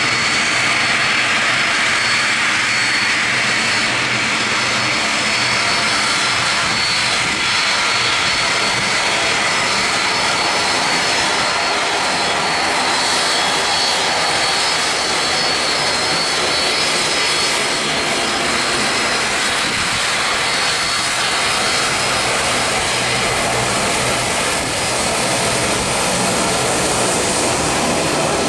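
Boeing 767-300ER's jet engines running steadily and loudly, with a thin high whine over the rush of the engines.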